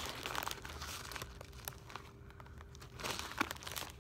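Brown paper takeout bag crinkling and rustling as food is pulled out of it, in two spells: one at the start and a shorter one about three seconds in, with a few small crackles between.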